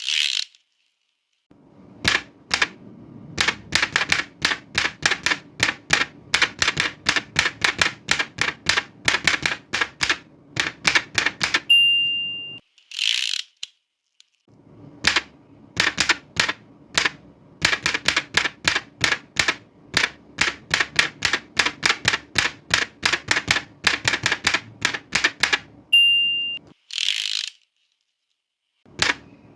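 Old manual typewriter being typed on in fast runs of clacking key strikes. Each line ends with the margin bell's short ding and then the swish of the carriage return: about 12 s and 26 s in, with one return right at the start. There are brief silent pauses between lines.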